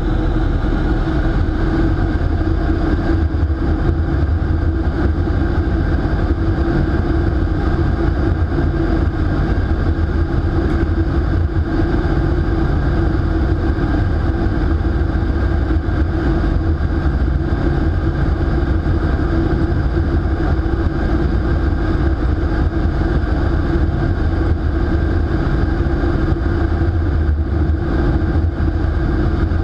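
Steady rush of air through a SkyVenture indoor vertical wind tunnel, heard from inside the flight chamber, with wind buffeting the microphone and a steady low hum from the tunnel's fans underneath.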